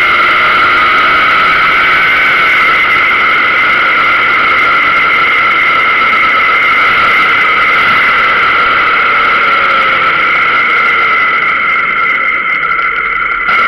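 Steady rush of wind over a camera on a moving motorcycle, with a constant high two-note whistle laid over it and a faint engine note wavering underneath.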